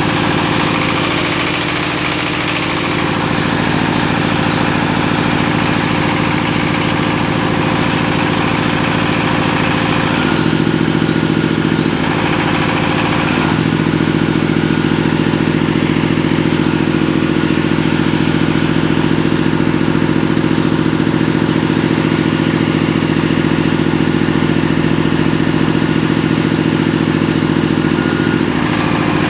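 Small single-cylinder stationary diesel engine running steadily at a constant speed, its note shifting briefly about ten seconds in.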